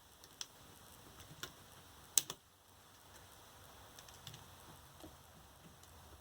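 A few faint, sharp clicks and ticks of hand tools and metal on the 18650 cell pack as nickel connector strips are worked loose from the spot-welded cells, the loudest a quick double click a little past two seconds in.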